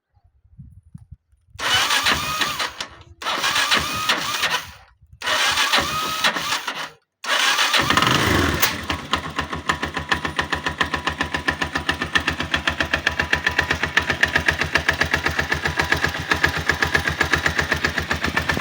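A 162FMG single-cylinder motorcycle engine is cranked in three short bursts and catches about seven seconds in. It then runs with a steady rapid beat. This is the knock whose source the owner is trying to find.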